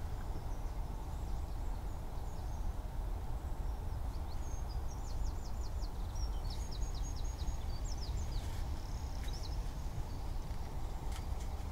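Songbird singing faintly in quick runs of high chirping notes, busiest in the middle stretch, over a steady low outdoor rumble.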